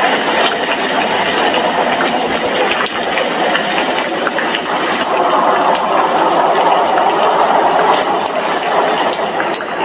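Heavy rain falling: a steady, dense hiss with many small drop ticks scattered through it.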